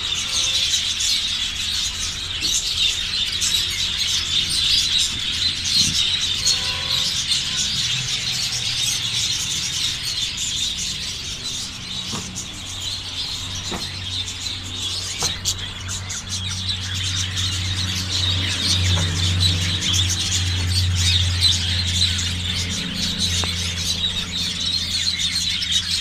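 A large flock of budgerigars chattering and chirping all at once, a dense, continuous high-pitched twittering with no pause.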